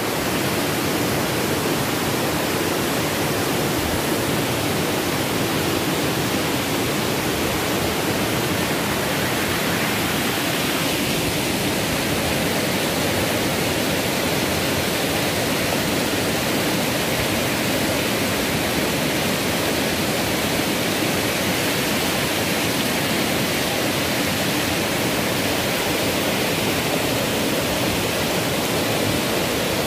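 Malaguicay Falls waterfall: a steady, unbroken rush of falling water.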